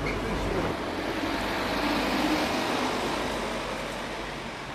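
A road vehicle passing by, its tyre and engine noise swelling to a peak about two seconds in and then fading away.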